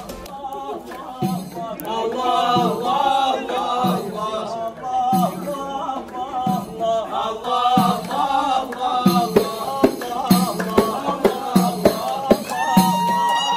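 Moroccan Issawa troupe performing: men chanting together over beaten frame drums. A steady held instrumental note comes in near the end.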